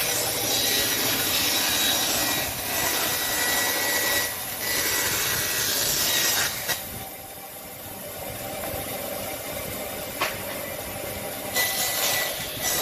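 Wood being sawn in long scratchy strokes of about two seconds each. There is a quieter pause in the middle with a single sharp click, then another stroke near the end.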